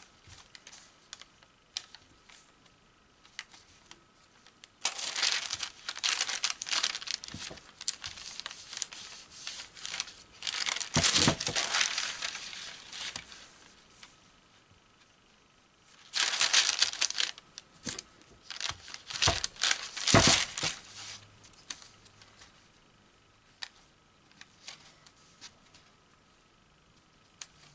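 Crinkling and rustling of a heat-bonded Angelina fibre sheet being folded and pressed by hand, in two long stretches of several seconds each, with quieter handling noise between them.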